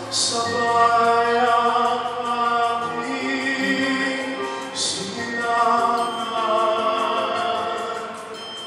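A male pop tenor singing a slow song into a microphone, holding long steady notes.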